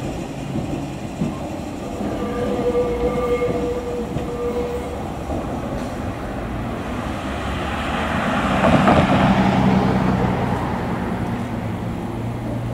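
Vintage tramcar running on the tracks: a steady whine for a few seconds, then wheels rumbling over the rails, loudest about eight to ten seconds in, over a low steady hum.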